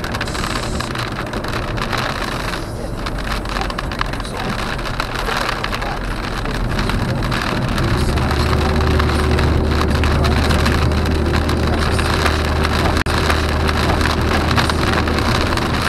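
A car driving in rain, heard from inside the cabin: steady road and tyre noise with rain on the windscreen. About halfway through, a steady low drone from the moving car comes in and holds, and the sound cuts out for an instant near the end.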